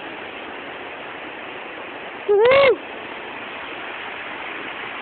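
Steady rush of a waterfall, with one short, loud call about halfway through that rises and falls in pitch.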